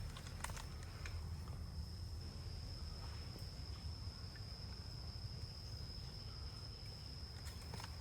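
Insects giving a steady high-pitched drone over a low rumble, with a few light clicks.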